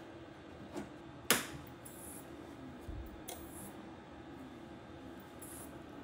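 A few sharp clicks, the loudest about a second in, as a cheap 3000 W modified-sine power inverter and the MIG welder plugged into it are switched on, over a faint steady hum. The welder won't stay on from this non-pure-sine inverter and keeps flickering on and off.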